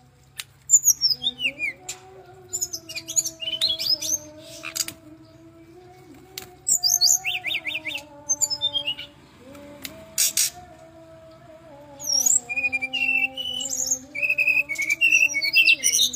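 Brown-chested jungle flycatcher singing in bursts of quick, high, twittering and sweeping phrases with short pauses between them, over a low steady drone.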